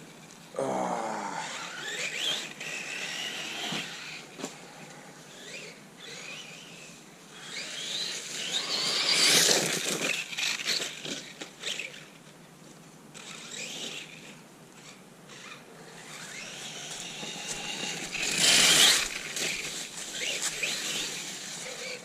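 Radio-controlled Losi Lasernut 4x4 truck on 4S power driving laps: the brushless motor and gears whine up and down in pitch as the throttle comes on and off. Louder rushes of tyre and drivetrain noise come about halfway through and again near the end.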